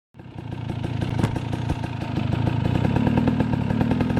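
KTM 300 two-stroke enduro motorcycle engine running at low, fairly steady revs, cutting in abruptly, with one sharp click about a second in.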